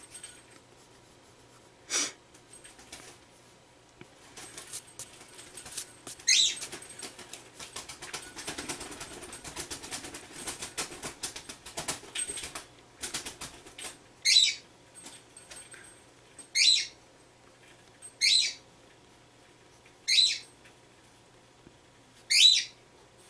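Red Prismacolor Col-Erase pencil scratching on mixed-media sketchbook paper: a run of quick, busy writing strokes, then a string of short, sharp strokes about every two seconds.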